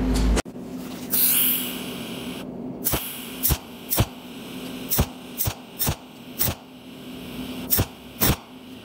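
Cold welding machine firing its tungsten torch in single spot pulses: about nine sharp snaps, irregularly half a second to a second apart, over a steady low electrical hum. A brief hiss comes about a second in.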